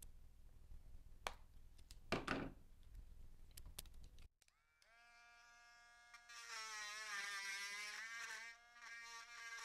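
A couple of short handling knocks, then a Dremel rotary tool spins up about five seconds in with a steady whine. Its pitch sags and turns harsher in the middle as the bit cleans melted plastic out of a hole drilled in a plastic helmet earmuff.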